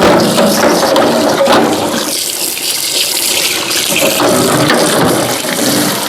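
Tap water running and splashing while refrigerator parts are washed under it; the splashing comes and goes as the flow hits the parts.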